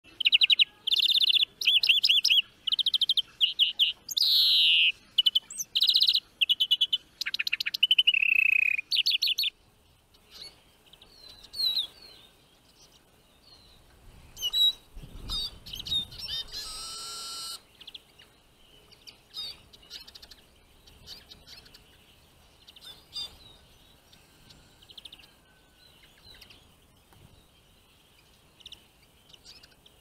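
Loud, fast songbird song of rapid trills with a long descending note, which stops about nine seconds in. After it come scattered faint chirps and calls of small finches around trap cages, with a brief rush of noise near the middle.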